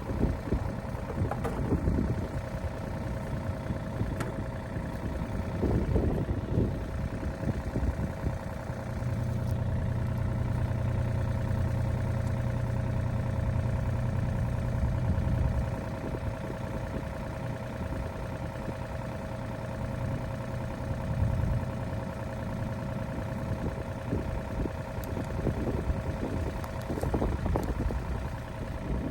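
An engine running steadily at idle, with a louder, deeper stretch of about six seconds in the middle.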